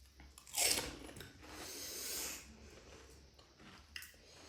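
Crisp, hollow panipuri shell crunching in a bite about half a second in, followed by about a second of softer crunching and chewing.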